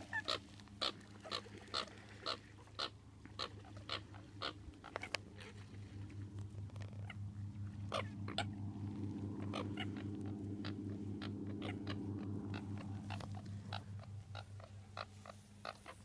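A flock of American coots calling with a run of short, sharp clicking calls, about two a second, over a steady low pulsing hum.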